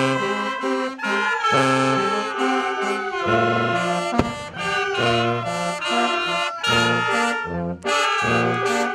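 A brass band playing a tune, with a low bass line pulsing under the melody. A single short knock is heard about four seconds in.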